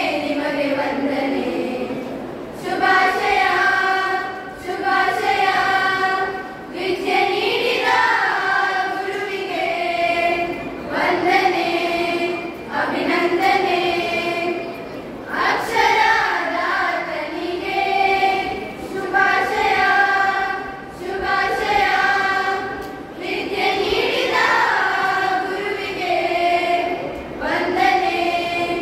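A group of children singing a song together, in phrases of a few seconds built from long held notes, with brief breaths between phrases.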